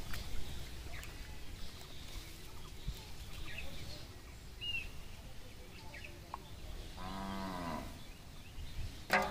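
A single drawn-out animal call lasting about a second, about seven seconds in, rising and then falling in pitch, with a brief louder call right at the end.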